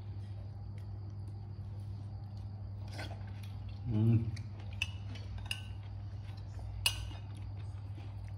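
Metal spoon and fork clinking against dishes and bowls during a meal: a handful of short, sharp clinks, some with a brief ring, over a steady low hum. A short voice sound about four seconds in.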